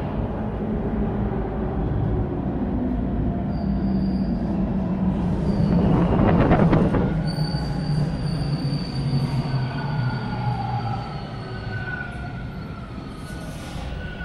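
TTC T1 subway train pulling into an underground station. Its rumble builds to its loudest about six to seven seconds in, then a steady high squeal and falling whines set in as it brakes toward a stop.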